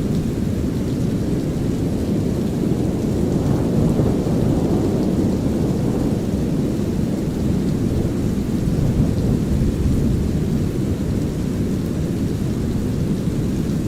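A steady, deep brown-noise hiss layered with light drizzling rain and low rumbling thunder, which swells a little about four seconds in.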